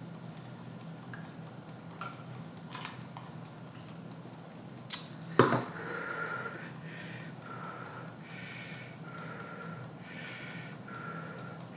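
A person sniffling and breathing hard in a series of hissing breaths with a faint whistle, reacting to the burn of scorpion-pepper hot sauce; a sharp knock about five seconds in.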